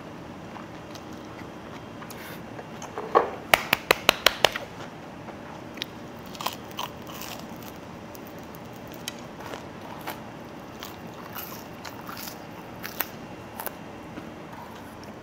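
Eating at the table: a quick run of about seven sharp clicks of cutlery against a dish, then scattered smaller clicks and chewing while the last of a plate of fried rice is eaten.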